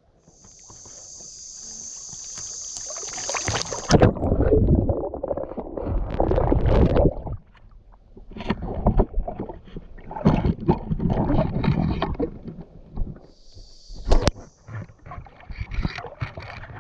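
Muffled water sloshing and rumbling as the camera is taken underwater during spearfishing, with irregular knocks. About four seconds in, a steady high hiss stops abruptly as the water noise begins.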